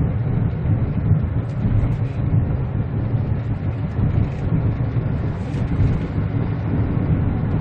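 Steady low rumble of a moving car heard inside the cabin of a 2013 Kia Ray gasoline turbo: engine and road noise while driving.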